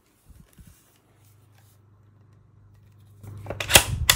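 Bolt of a Diana Mauser K98 PCP air rifle being worked: a couple of light clicks, then, near the end, a quick run of sharp metallic clacks and scraping as the bolt is opened and drawn back.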